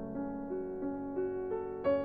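Background music: a soft piano melody of single notes, about three a second.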